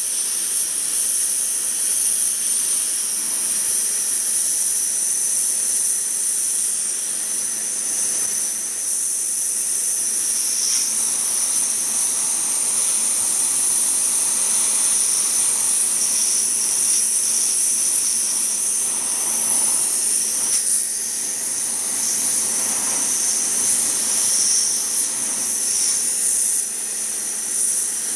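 Karcher K2 pressure washer with a wet sandblasting nozzle spraying its jet onto a painted alloy wheel rim to strip the paint: a steady, high-pitched hiss that does not let up.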